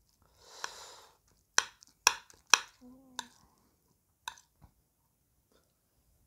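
A metal spoon clinks and scrapes against a plate while scooping up rice: about six sharp clinks spread over the first four seconds, with a soft scraping hiss near the start.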